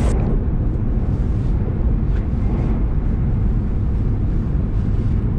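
Steady low rumble of a Shinkansen bullet train in motion.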